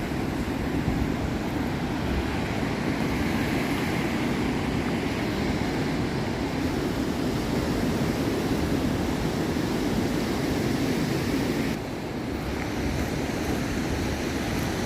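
Ocean surf washing on the beach, mixed with wind on the microphone, as a steady rushing noise that drops briefly about twelve seconds in.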